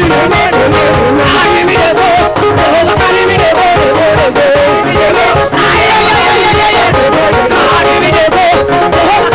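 Loud, continuous live praise-and-worship music: a band with a steady beat and a wavering melody line carried by a voice or a lead instrument.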